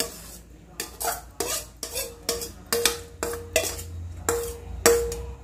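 Stainless steel pan knocked and scraped with a spoon about a dozen times to empty it of cooked drumstick leaves and onion, each sharp metal clink ringing briefly.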